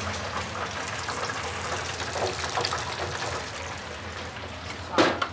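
Steady hissing noise of a busy commercial kitchen, from the fryer and extractor hood, with a short loud clatter near the end.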